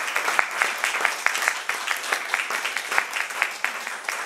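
Audience applauding: many hands clapping in a dense, even patter that begins to thin out near the end.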